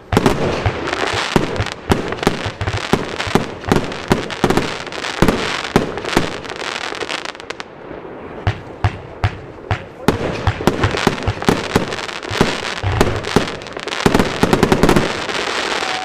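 Evolution Snowstorm fireworks compound cake firing: a rapid string of loud shot launches and aerial bursts with crackling. There is a short lull about eight seconds in, then it picks up again and ends in a dense flurry of bangs.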